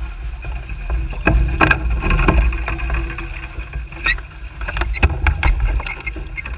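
Small sailboat under way: water rushing along the hull and wind buffeting the camera's microphone, with scattered sharp knocks and clicks from the boat.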